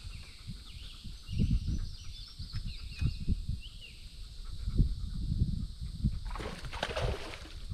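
Songbirds chirping in the background over uneven low rumbling thumps close to the microphone. Near the end comes a short breathy rush of noise.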